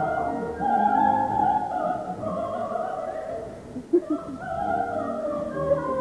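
Operatic singing over an orchestra: a sung passage with the voices' melody moving in held, gliding notes.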